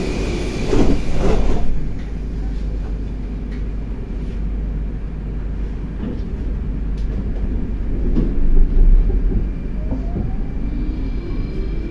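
81-760A/761A "Oka" metro train running, heard inside the passenger car: a steady low rumble of wheels on track that swells louder about a second in and again around eight seconds. Near the end a rising electric whine from the traction drive comes in.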